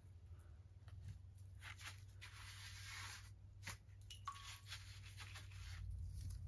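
A large stone being bedded by hand on top of a stone wall: faint scraping and grinding of rock against rock, with a few light knocks as it is wiggled into place.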